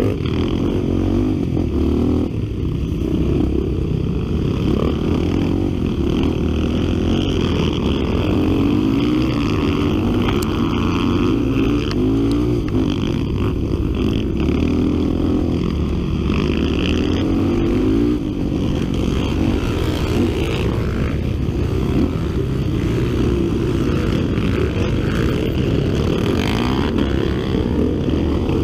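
Honda XR 250 Tornado trail motorcycle engine running off-road under load, its pitch rising and falling over and over as the throttle is opened and closed.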